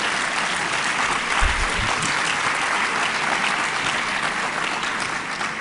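Audience applauding, a dense steady clapping that begins to ease off near the end.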